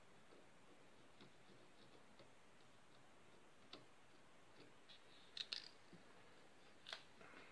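Near silence with a few faint sharp clicks and taps from small objects being handled at a workbench, with a quick cluster of clicks a little past halfway and one more near the end.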